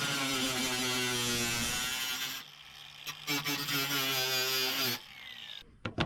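A handheld power tool runs in two bursts of about two seconds each, its pitch dipping as it bears into the work. A few sharp clicks follow near the end.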